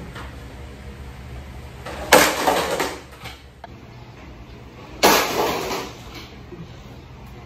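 Two loud crashes about three seconds apart, each starting suddenly and dying away over about a second, like something smashing.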